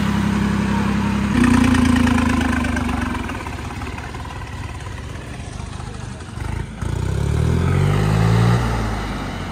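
Massey Ferguson 9500 tractor's diesel engine running, stepping up in revs about a second and a half in, then settling lower. Near the end a tractor engine revs up with a rising pitch and drops off.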